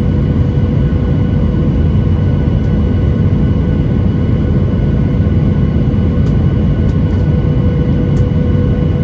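Boeing 737-900ER running steadily: its engines and airflow give a continuous low rumble with a steady hum of tones on top.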